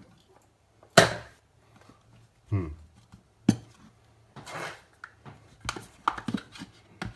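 Scattered sharp clicks and knocks of small parts and tools being handled on a workbench, the loudest about a second in and again about three and a half seconds in. About two and a half seconds in there is also a short sound that falls in pitch.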